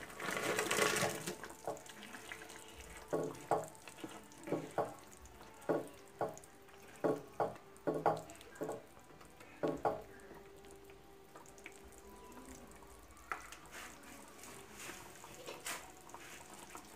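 Fried koftas dropping with a wet splash into thick, simmering gravy in a non-stick pan. A spatula then stirs the curry, knocking sharply against the pan a dozen or so times, and the gravy bubbles and plops more faintly near the end.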